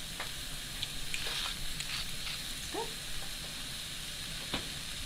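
Sliced zucchini and carrots sizzling steadily in hot oil in a nonstick aluminum-core skillet, with scattered small crackles of a sauté underway.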